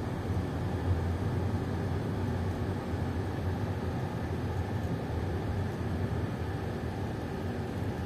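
Steady low rumble of a car's engine and tyres heard from inside the cabin while it drives slowly along a street.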